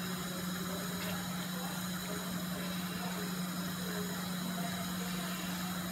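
Steady low hum under an even hiss, with one faint tap about a second in.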